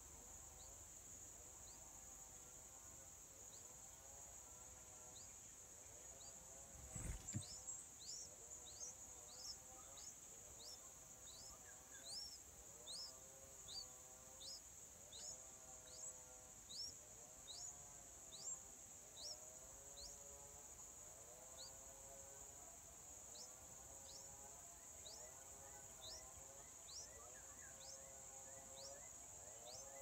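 Yellow-vented bulbul nestlings begging: a run of short, high, rising cheeps, about one or two a second, starting after a thump about seven seconds in as the parent arrives at the nest. Under it runs a steady, high insect drone.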